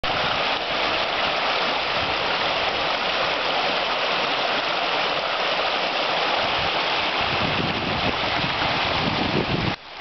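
Shallow, fast-flowing river rushing over a stony bed: a steady hiss of moving water. Low rumbles come and go in the second half, and the sound dips briefly just before the end.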